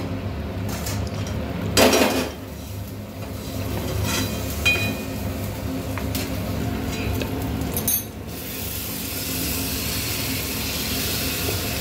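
Hand squishing marinated mutton in a plastic bowl, with a few knocks against the bowl, then a hiss that builds up as the meat is tipped into a hot pan and starts to sizzle. A steady low hum runs underneath.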